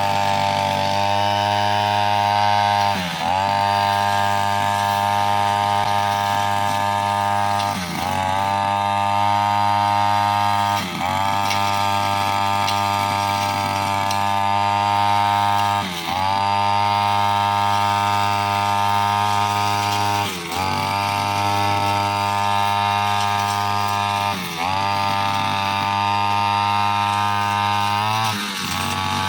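Two-stroke brushcutter engine running at high revs while cutting with a blade. Its pitch dips briefly and climbs back about every four seconds, around seven times.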